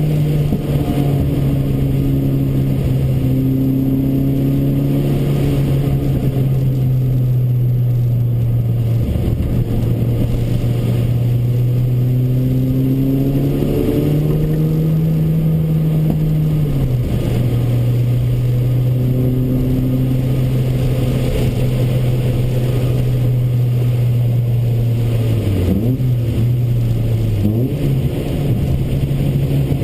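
Toyota Corolla AE93's 20-valve 4A-GE four-cylinder engine heard from inside the cabin, running hard at sustained revs around a circuit. Its note drops and climbs back up a few times as the car is driven through corners.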